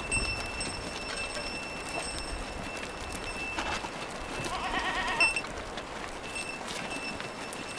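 A flock of sheep and goats moving over a stony trail: a steady shuffle of many hooves on rock and gravel. One wavering bleat comes from the flock about halfway through, ending in a sharp clack.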